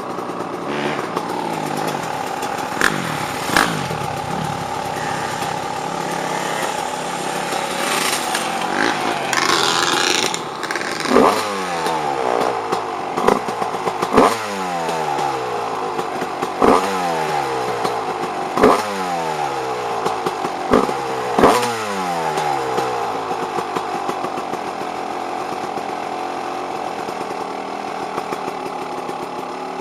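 Dirt bike engine running, its throttle blipped about seven times in the middle stretch; each time the revs jump and fall away again before it settles back to a steady idle.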